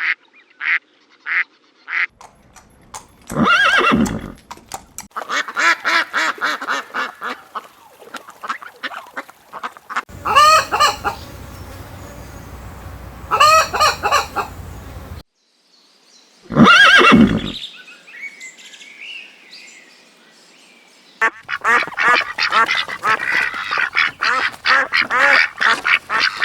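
Poultry calling in a run of short clips: single loud honk-like calls a few seconds apart, broken by stretches of rapid chattering calls, with short gaps between the clips.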